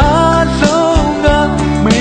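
Burmese pop song: a male singer glides up into a long note and holds it with a wavering vibrato, over a band with a steady drum beat.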